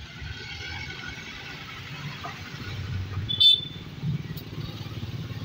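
Motorcycles and small vehicles passing close on a rain-wet street, with a steady low engine rumble and the hiss of tyres on wet road. About three and a half seconds in there is a brief shrill squeal, the loudest sound here.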